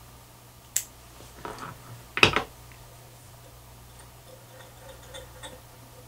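A few sharp clicks and light knocks from handling fly-tying tools and materials at the vise. The loudest is a short cluster of clicks about two seconds in, followed by only faint small ticks.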